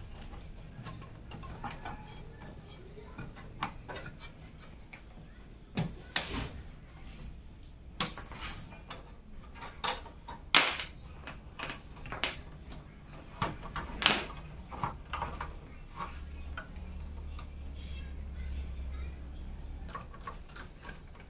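Irregular clicks and knocks of computer parts and hardware being handled and fitted into a PC case, with sharper knocks about 6, 10 and 14 seconds in, over a low steady hum.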